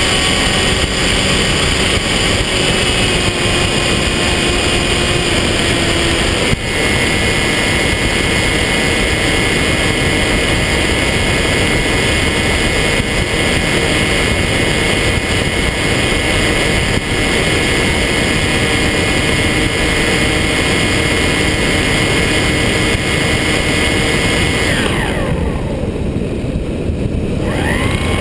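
Electric motor and propeller of a foam FPV plane in flight: a steady whine over heavy wind rush on the onboard camera. Near the end the throttle is cut and the whine drops away, then it spools back up with a rising whine just before the end.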